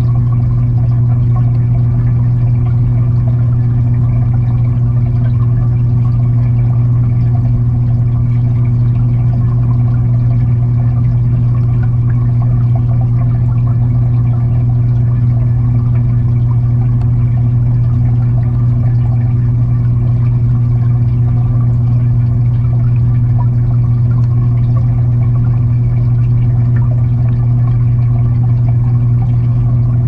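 Steady low hum and constant water rush inside an aquarium, heard through a camera sitting underwater in the tank. The level stays even throughout.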